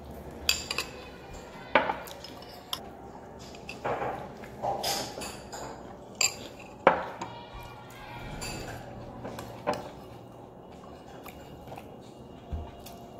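Metal spoon clinking and scraping against a ceramic bowl while eating, a scattering of sharp clinks a second or more apart.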